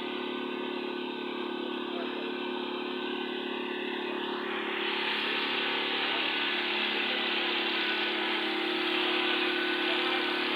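Concrete mixer's small engine running steadily, the sound growing louder and harsher about four and a half seconds in.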